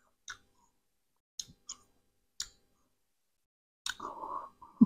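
Close-miked mouth sounds of eating sour Indian gooseberry (amla): a handful of short, crisp smacks and crunches with pauses between them. Near the end comes a louder breathy noise that ends in a low thump.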